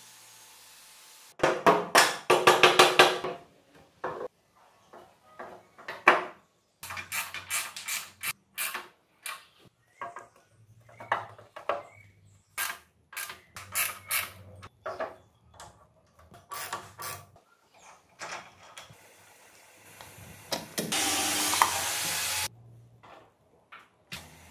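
Hand tools and metal parts being handled and worked: scattered clicks and knocks, a quick loud run of clicks a couple of seconds in, and a steady hiss lasting about two seconds near the end.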